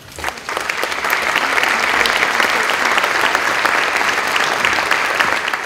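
Audience applauding: the clapping starts a fraction of a second in, builds within about a second and then holds steady.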